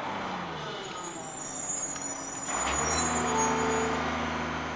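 A large truck's engine running, such as a recycling collection lorry. A sudden sharp sound comes about two and a half seconds in, after which the engine note settles lower and steadier, fading out near the end.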